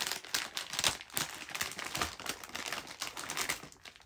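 Plastic candy packaging rustling and crinkling as it is rummaged through and picked up: a quick, uneven run of crackles that dies down near the end.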